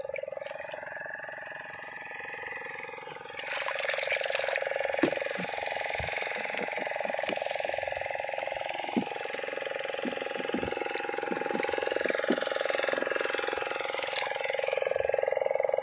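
Shallow water sloshing and splashing with scattered small clicks, starting about three seconds in, as the fisherman moves through it. Under it runs a steady hum that wavers slowly in pitch.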